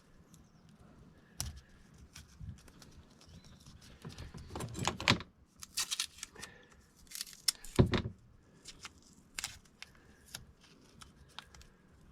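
Hand handling noises while fitting a cable: scattered rustling, light clicks and knocks, with a sharper knock about eight seconds in.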